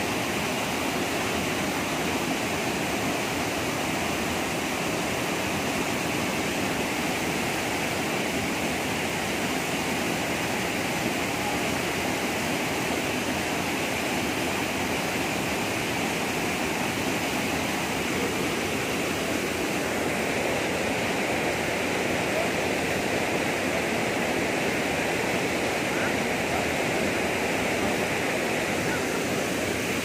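Waterfall pouring into a rocky plunge pool and rushing off as a fast stream: a steady, unbroken roar of water.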